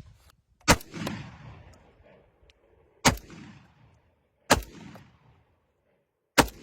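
Bull-pup shotgun firing four single shots about two seconds apart, each followed by a fading echo.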